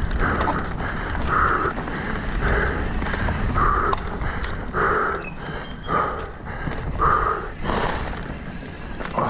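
Mountain biker's hard, rhythmic breathing, about one breath a second, over a steady low rumble of wind and riding noise.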